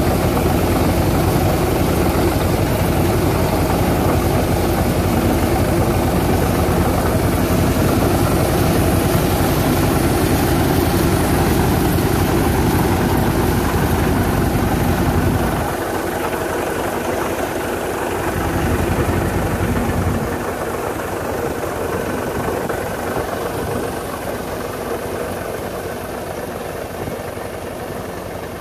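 Engine-driven air-blast crop sprayer running steadily, its engine and fan blower driving the spray mist. About halfway through the deep rumble drops away, and the sound then slowly grows fainter as the machine moves off down the row.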